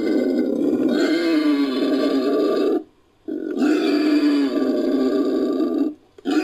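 Sound-designed Anthracotherium magnum calls, made from an existing Anthracotherium sound and wild boar recordings: long, wavering, pitched animal calls in about three-second stretches. Each stretch is split from the next by a brief silence, about three seconds in and again near the end.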